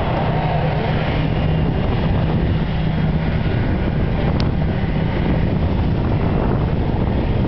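Steady wind buffeting on the microphone over the low hum of boat engines on the water, with a brief high-pitched chirp about four seconds in.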